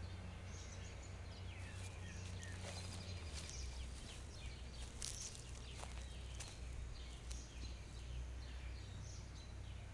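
Birds chirping in short high calls scattered throughout, over a steady low rumble, with a few light clicks.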